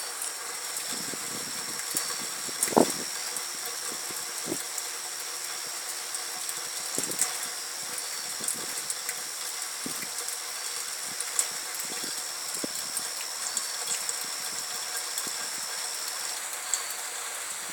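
Rain at night: a steady hiss with scattered drips and taps and one louder knock about three seconds in. A thin, steady high tone runs beneath it and stops near the end.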